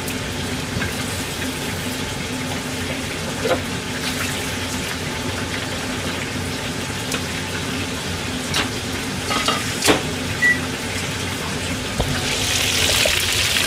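Chicken karaage deep-frying in a pot of oil: a steady sizzle that gets louder and brighter near the end. A few light clicks of utensils.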